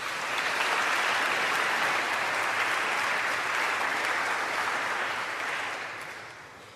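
Audience applauding, a steady clapping that dies away near the end.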